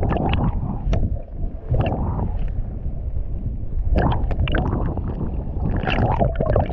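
Water heard through a camera held under the surface: a muffled, steady rumble of moving water with sharp clicks and knocks now and then against the housing.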